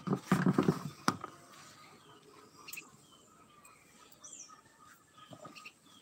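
A loud, rough animal call in the first second, with a sharp click just after it, then faint short chirps of small birds.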